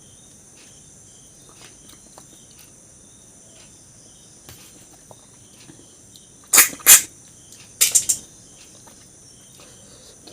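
Close-up eating sounds: two short clusters of loud, sharp crunching and smacking about six and a half and eight seconds in. A steady high insect chirr, like crickets, runs underneath.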